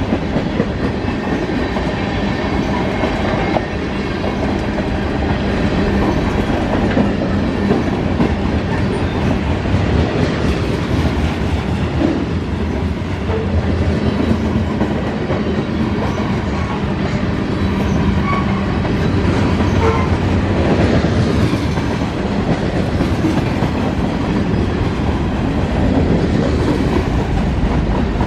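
Freight train rolling past: a steady rumble of steel wheels on rail with a clickety-clack over the rail joints.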